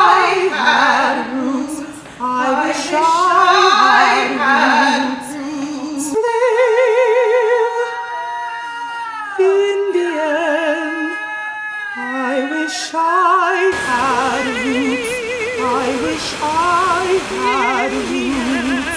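A woman singing sustained notes with a wide vibrato. The background changes abruptly about six seconds in and again near fourteen seconds, as the recording cuts between takes.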